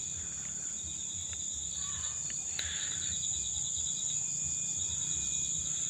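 A chorus of insects calling: a steady high-pitched whine with a lower, rapid pulsing trill running under it.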